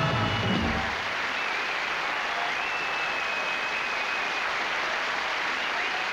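A band's closing number ends about a second in, and a studio audience applauds steadily.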